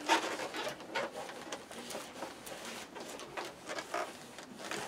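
A cotton rag wiping and rubbing along a cardboard box, in quick, irregular strokes.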